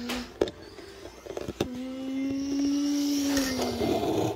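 A person hums a steady engine-like drone for about two seconds, its pitch rising a little and then falling, imitating a plane taking off as a toy jet is flown by hand. A sharp knock comes just before, and another about a second later, as the plastic toy taps a hard surface. A breathy rushing noise swells near the end.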